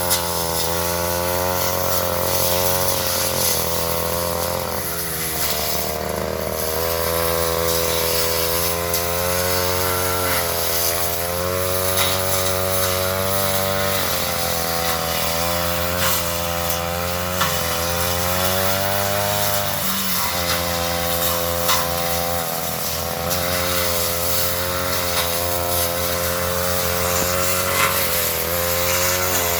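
Petrol brush cutter running near full throttle while clearing undergrowth. Its engine note sags under load and climbs back every few seconds, with occasional sharp ticks.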